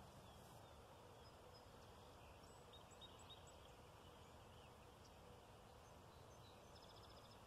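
Near silence, with faint bird chirps scattered through it and a quick trill of repeated chirps near the end.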